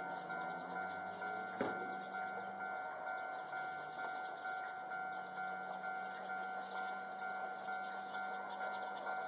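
Railway level-crossing warning bell ringing in an even rhythm, about two strikes a second, over a steady tone, as a train approaches. A single sharp click sounds about one and a half seconds in.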